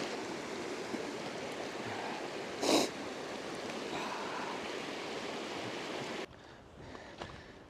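Steady rushing of a glacial meltwater stream, with one short sharp sniff or breath about three seconds in. The rushing cuts off abruptly about six seconds in, leaving a much quieter background.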